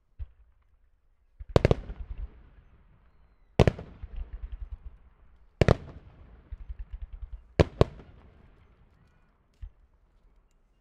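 Aerial firework shells bursting with loud bangs about every two seconds, the last two close together. Each bang is followed by a rapid string of smaller crackling pops.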